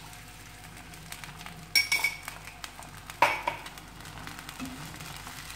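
Milk with cornflour poured from a glass jar into a non-stick frying pan of onions, with two sharp ringing clinks of the glass knocking the pan about two and three seconds in. Near the end a spatula stirs the mixture over a faint sizzle.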